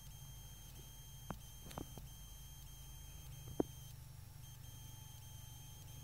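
Faint steady high-pitched whine over a low hum, with a few short sharp clicks about a second in, around two seconds in, and a louder one about three and a half seconds in.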